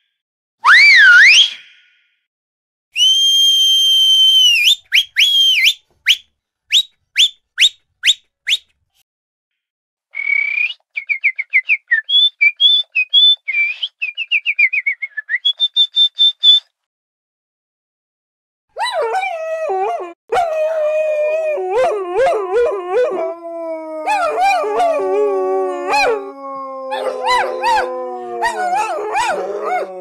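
Whistling: two sliding whistles, a long held tone, a run of short pips, then fast warbling trills. From about 19 s, dogs howling together in long falling notes.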